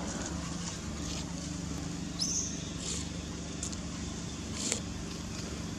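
Steady low drone of a distant engine, with a few brief high chirps, one rising sharply about two seconds in, and a faint click near the end.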